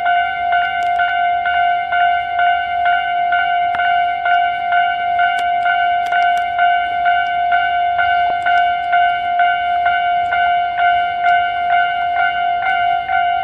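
Japanese railway level-crossing alarm bell ringing: a loud electronic ding repeated at a quick, even rate, the warning that a train is approaching or passing.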